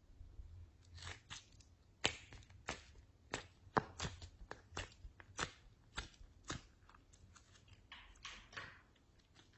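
Slime being mixed and squished by hand, giving sharp sticky pops and clicks about twice a second, then softer crackling squelches near the end.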